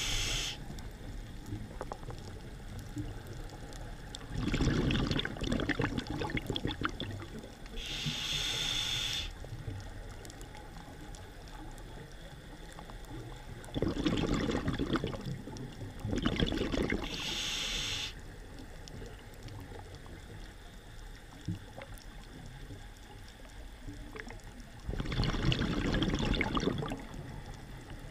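A scuba diver breathing through a regulator, heard underwater: short hissing inhales roughly every nine seconds, and between them longer bursts of bubbling exhaust as the diver breathes out.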